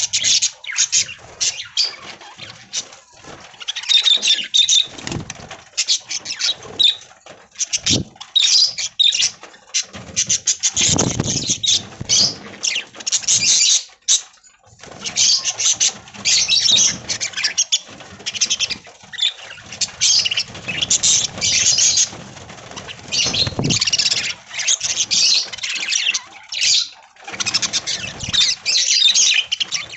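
A flock of budgerigars chattering and chirping without a break, with a couple of low thuds along the way.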